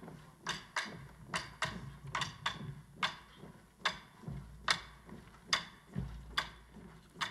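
Marching band moving onto a stage in step, before the music starts: sharp, dry clicks keep an even marching time about every second, with softer ones between, over a low rumble of feet.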